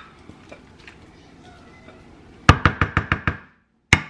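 A quick run of about seven sharp knocks, lasting under a second, from a wooden spoon rapped against the rim of a glass mixing bowl to knock the food off it. A single knock follows shortly after.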